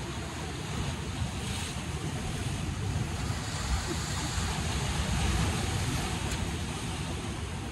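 Sea surf washing and breaking against a rocky shore, swelling and easing, with wind rumbling on the microphone.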